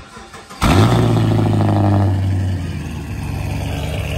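Chevrolet Camaro SS's 6.2-litre V8 cold-started: it catches about half a second in with a sudden loud flare, then settles a little after a couple of seconds into a steady, fast cold idle.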